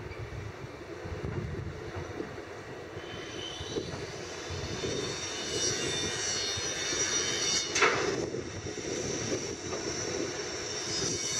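Hitachi Zaxis 350 excavator and a heavy dump truck, their diesel engines running as the truck backs up beside the excavator. A high squeal comes in from about three seconds in, and there is one brief sharp sound near eight seconds.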